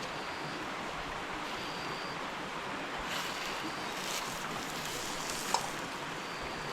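Steady hiss of an empty wok left on the heat, sizzling with nothing in it.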